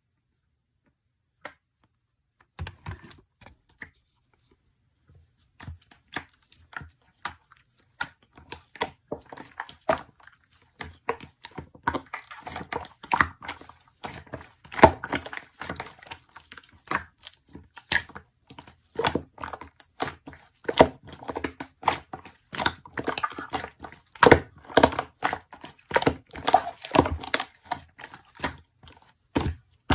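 Close-up handling sounds: busy crinkling, crackling and tapping of objects near the microphone, starting a few seconds in and growing denser.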